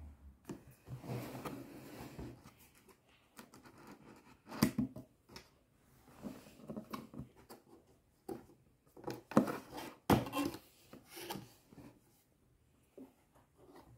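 A cardboard box being opened by hand: the tuck flap rubbing and scraping against the cardboard, with scattered sharp knocks and taps. The loudest come a little under halfway through and again about two-thirds in.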